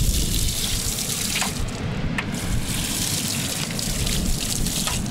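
Water running from an outdoor standpipe tap and splashing over a unicycle's fat knobbly tyre and wheel, rinsing off beach sand that has got onto the disc brake.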